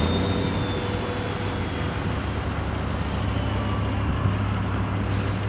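Outdoor road and work-vehicle engine noise: a steady low rumble, with a faint high tone fading out over the first two seconds.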